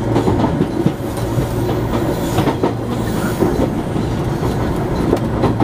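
A JR 415 series electric multiple unit running, heard from inside the train: a steady rumble with the wheels clacking over rail joints and points a few times.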